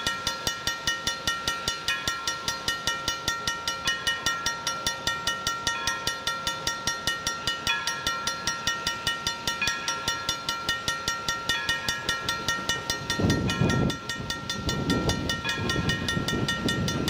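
Railway grade-crossing bell ringing in a fast, steady rhythm, about four strikes a second. From about thirteen seconds in, the low, uneven working sound of Essex Terminal Railway steam locomotive No. 9 approaching comes up under the bell.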